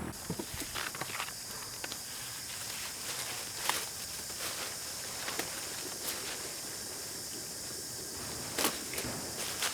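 Steady high-pitched insect drone, with a few scattered short knocks, loudest a little before the middle and near the end.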